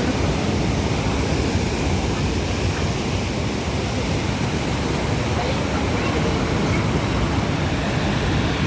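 Steady rushing noise of sea surf, with wind rumbling on the microphone.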